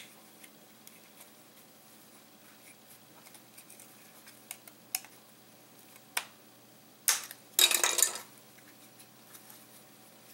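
Plastic parts of a drone battery's casing being handled with gloved hands on a wooden workbench: a few scattered light clicks, then a loud burst of plastic rattling and scraping about seven to eight seconds in.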